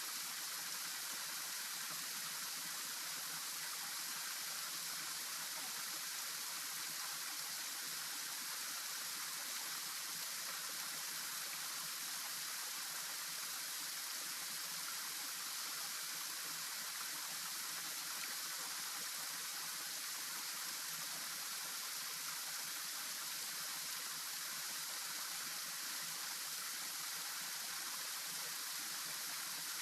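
Steady rush of flowing stream water, even and unbroken, with no separate splashes or other events.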